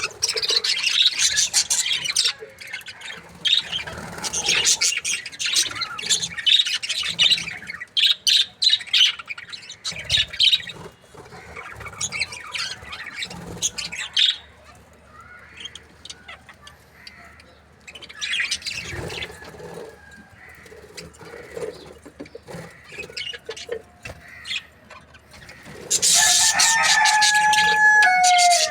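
Budgerigars chirping and chattering rapidly, busiest in the first half and quieter in the middle. Near the end a loud burst of chatter comes with a held whistle that drops in pitch.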